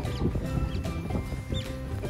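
Background music, with Asian small-clawed otters giving short, high chirps about twice a second over it.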